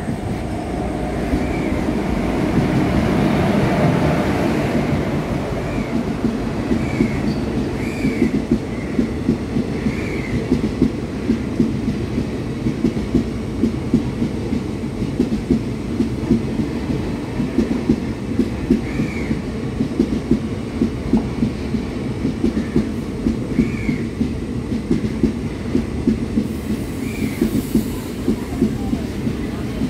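The Palaruvi Express passenger train runs past the platform, its wheels clicking over the rail joints in a fast, steady rhythm. It is louder in the first few seconds, and there are short, high wheel squeals now and then.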